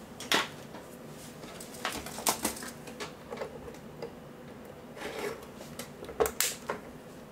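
Scattered clicks and knocks of hand handling: a power plug pushed into a Zebra ZD410 label printer and its plastic case shifted on the bench. The sharpest click comes about a third of a second in, with more clustered around two seconds and six seconds.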